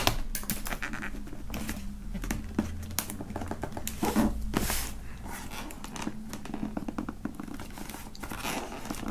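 Clear adhesive tape being peeled off a cardboard box, with irregular tearing, crinkling and scraping, louder for a moment about four seconds in.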